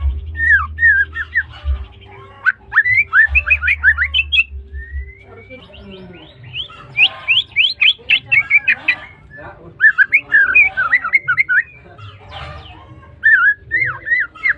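White-rumped shama (murai batu) singing: bursts of quick whistled notes sweeping up and down, in phrases broken by short pauses.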